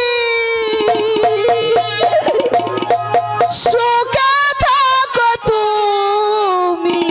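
Jatra band music: one long held melody note that slowly falls in pitch, with tabla-style hand-drum strokes joining about a second in and a sung phrase around the middle.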